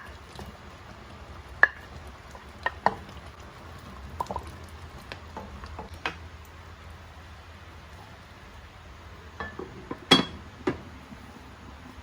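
Cooking utensils knocking and clinking against a pot of stew while vegetables are added and stirred in: scattered sharp knocks, the loudest cluster about ten seconds in. A steady sizzling hiss of the simmering stew runs underneath.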